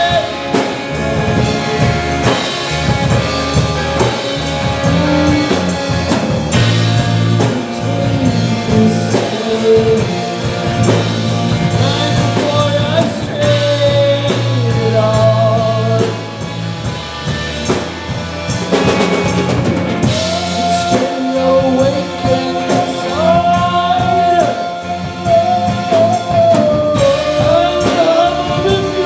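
Live rock band playing: electric guitars and a drum kit, with a woman singing.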